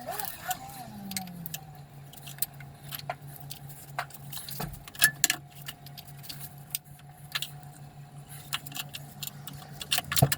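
Metal tools and engine parts clinking and tapping irregularly, with louder knocks about five seconds in and near the end, over a steady low hum.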